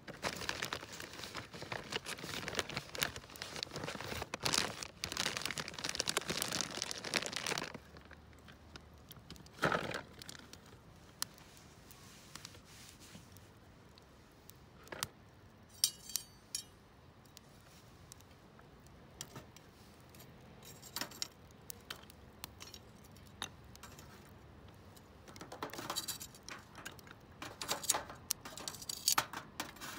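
Rustling and crinkling for about eight seconds, then scattered knocks and a few short ringing clinks of small metal or glass items being handled, heaviest near the end.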